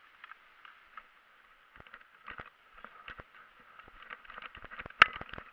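Footsteps of a person running across wet grass: irregular soft thumps that start about two seconds in and come quicker towards the end. One sharp crack sounds near the end.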